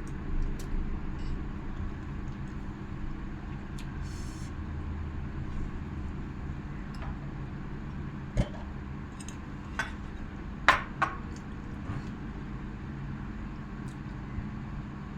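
Eating at a table: a few sharp clinks of dishes or cutlery, the loudest about eight and eleven seconds in, over a steady low hum.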